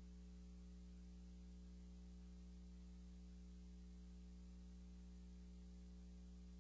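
Near silence: a steady low electrical hum with a faint hiss.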